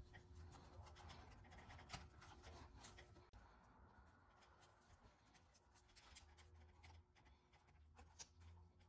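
Near silence with faint rustling, scratching and small clicks from gloved hands handling the wires at a garage door opener's motor capacitor.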